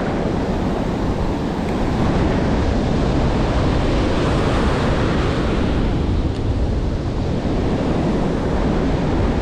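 Ocean surf breaking and foamy wash rushing over the sand, steady throughout, with strong wind buffeting the microphone.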